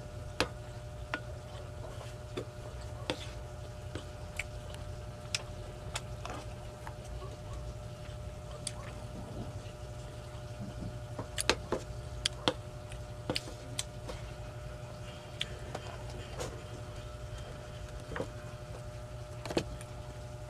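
Mukbang eating sounds: a wooden spoon scooping rice off a tray and chewing, heard as scattered sharp clicks and smacks about every second or two, with a cluster of louder ones about halfway through. A steady low hum runs underneath.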